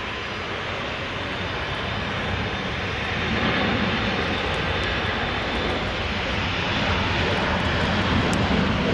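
Jet airliner's engines, a steady wide roar that grows louder, with a rise about a third of the way in.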